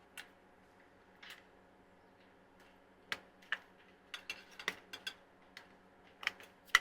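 Sharp clicks and taps of hard plastic parts as an LED ceiling light's housing is worked open: a single click, then near silence for a few seconds, then several clicks a second from about halfway, the loudest near the end.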